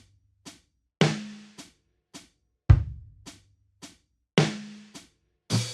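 Solo drum-kit intro: a slow, sparse beat with a heavier low hit about every 1.7 seconds and lighter, higher hits between, each dying away into silence before the next.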